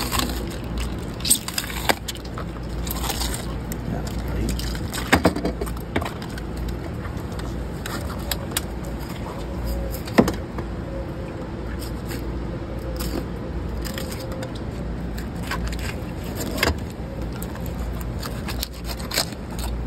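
Knife cutting and scraping through triggerfish flesh and skin, with scattered sharp clicks and knocks of the blade and fish against the cleaning table, over a steady low rumble.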